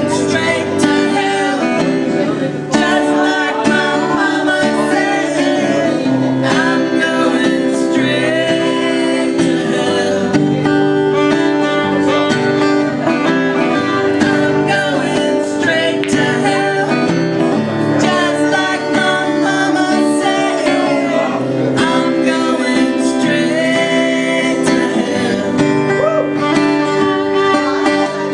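Fiddle and acoustic guitar playing a tune together: the fiddle holds bowed notes over steady strummed guitar chords.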